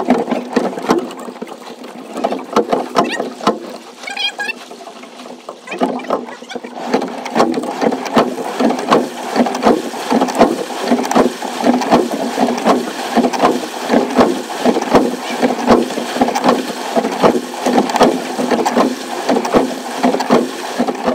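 Water splashing and slapping against the hull of a rowing shell under way, heard close up from the bow, a dense patter of small knocks that grows louder and more regular from about six seconds in.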